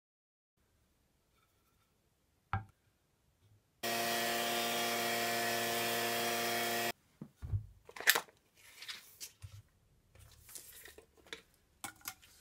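Benchtop thickness planer running steadily for about three seconds as a board passes through, starting and stopping abruptly. Before it a single knock, and after it scattered knocks, clicks and rustling of the board and a tape measure being handled.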